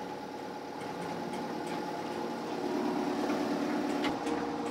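Sailing yacht's engine running steadily at low speed, heard on board, with a brief knock about four seconds in.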